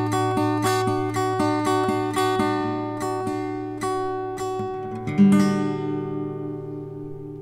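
Acoustic guitar playing: single picked notes about three a second, then a last chord about five seconds in that rings on and slowly fades.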